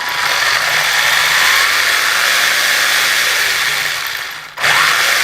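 An electric RC car's motor and drivetrain spinning a wheel up to high speed on the bench, a loud whine with a rush of air from the tyre. About four and a half seconds in the throttle drops off briefly, then the whine climbs again.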